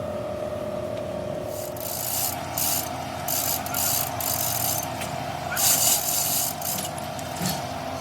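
Steady mechanical hum, with a run of short, irregular hissing, scraping bursts starting about a second and a half in.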